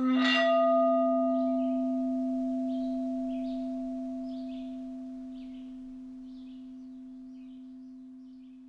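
A single struck bell tone, rich in overtones at the strike, ringing out and fading slowly away, with faint short high chirps scattered above it.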